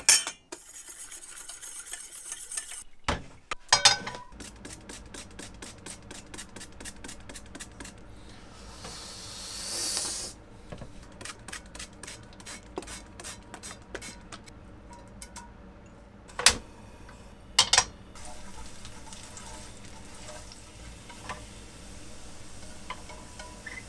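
A hand trigger spray bottle pumped over and over, a quick run of clicks at about five a second, with a hiss of spray about ten seconds in and two sharp knocks of pan or utensil. After that, sliced garlic starts to sizzle and crackle gently in oil in an iron wok.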